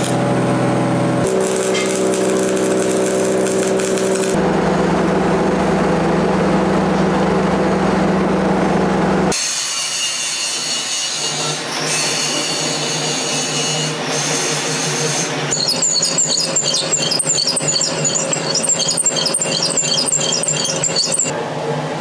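Electric welding on the steel of a railroad-rail anvil for roughly the first nine seconds, in a few cut segments. Then a drill press bores out a hole in the steel, the cutter running with high-pitched squealing that turns into a rapid, rhythmic chatter for the last several seconds.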